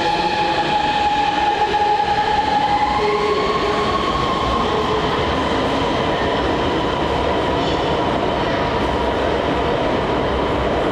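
Guiyang Metro Line 1 six-car Type B electric metro train pulling out of the station. Its motors give a whine of several steady tones that steps up in pitch about three seconds in as it gathers speed, over a steady rumble of the train running on the rails.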